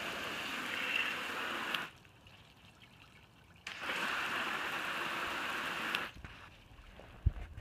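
Garden hose spraying water onto a plastic tray, a steady hiss of spray and splashing. It stops about two seconds in and starts again a little later for about two more seconds, with a few faint knocks near the end.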